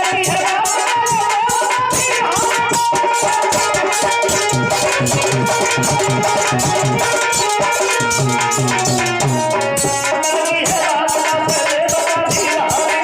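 Indian folk music interlude: a melodic lead instrument over steady hand-drum and rattle percussion, with no singing.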